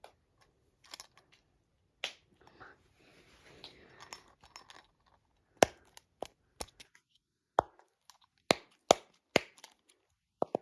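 Fidget toys being handled: soft rustling and crackling at first, then from about halfway a run of sharp, irregular clicks, roughly one every half second to second.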